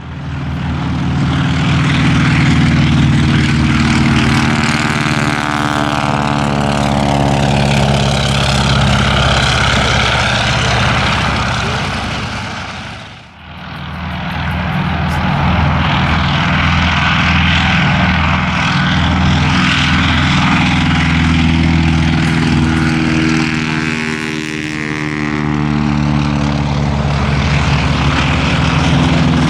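Propeller-driven piston aircraft flying past with a loud, steady engine drone, its tone sweeping slowly as it goes by. The sound drops out sharply about 13 seconds in, then a similar propeller drone builds up again.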